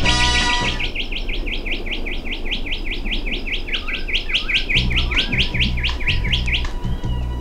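A bird chirping in a long fast series of quick high chirps, about six a second, stopping shortly before the end, with a few lower calls partway through.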